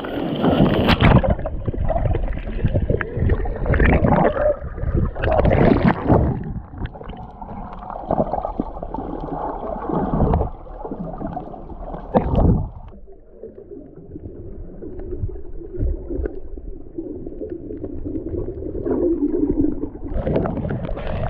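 Muffled underwater sound of churning water and bubbles around a camera below the surface as a swimmer dives past it: irregular surges for the first dozen seconds, then a quieter steady rumble.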